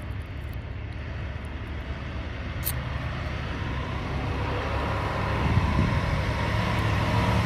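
Large vehicle engine running outdoors, a low rumble that grows steadily louder, as a truck nearby pulls closer or revs up.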